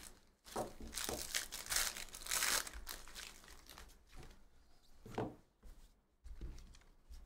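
Foil wrapper of a Panini Donruss basketball hobby pack being torn open and crinkling for about two seconds, followed by softer rustling as the cards are slid out.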